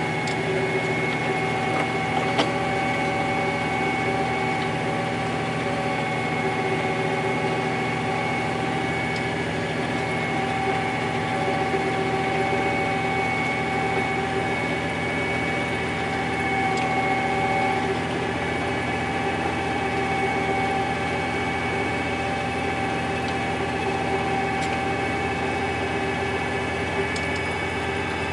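Fendt 712 tractor engine running steadily under load, pulling a rotary harrow and seed drill, heard from the cab, with a steady high whine over the drone.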